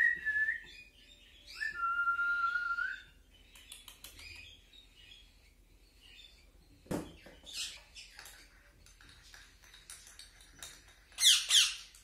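Cockatiel chicks calling while being hand-fed: two held whistle-like squeaks in the first few seconds, scattered clicking, and two loud falling chirps near the end.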